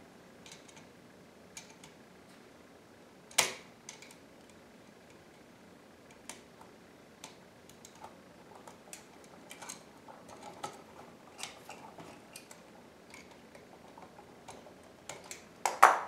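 Steel needle-nose pliers clicking against a bare copper wire and an outlet's brass terminal screw while the wire's hook is bent in around the screw: light, scattered metal ticks, one sharper click a few seconds in and a cluster of louder clicks near the end.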